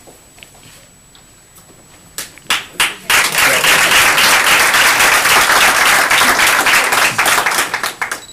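Audience applauding: a few scattered claps about two seconds in, swelling into loud, dense applause about three seconds in, fading out near the end.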